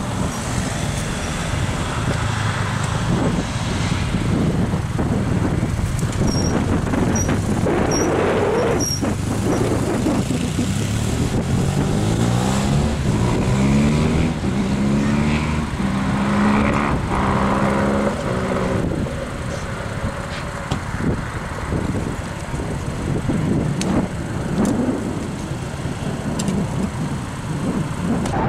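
A car engine accelerating, its pitch climbing in several steps, over steady wind and road noise.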